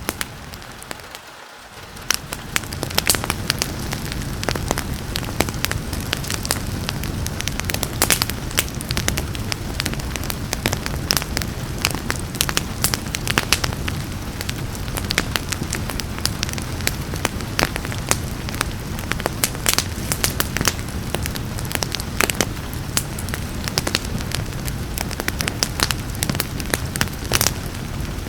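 Wood fire crackling and popping with frequent sharp snaps over a steady hiss of rain. The sound briefly drops away about a second in, then returns.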